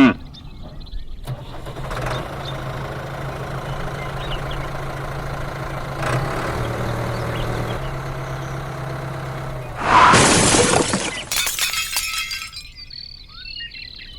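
An engine runs with a steady hum, then about ten seconds in there is a loud rushing burst followed by a short clattering crash.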